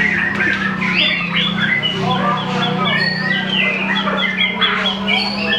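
White-rumped shama singing a rapid, unbroken run of varied whistles, slurred glides and harsh chattering notes, over a steady low hum.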